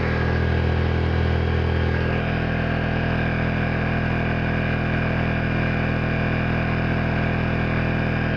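Honda EU2000i inverter generator's single-cylinder four-stroke engine running steadily at high speed under a near-full load of about 2100 watts, with a hair dryer blowing alongside.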